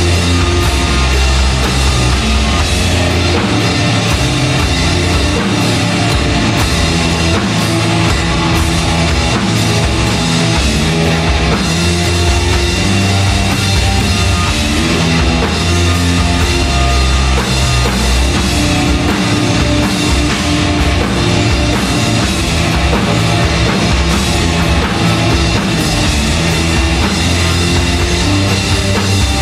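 Sludge metal band playing live at full volume: heavy distorted electric guitar and bass riffs over a drum kit.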